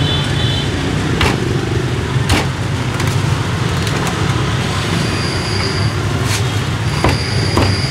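Cleaver chopping roast pork on a wooden chopping block: a few sharp, separate knocks spread out over several seconds. Under it runs a steady low rumble of street traffic.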